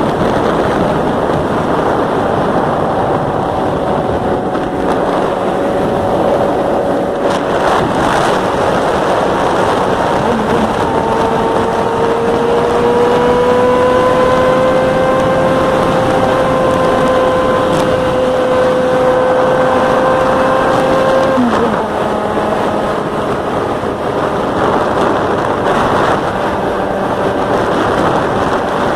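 Yamaha XJ6N motorcycle's inline-four engine running. From about 11 seconds in it holds a steady, slowly rising pitch for about ten seconds, then drops off suddenly.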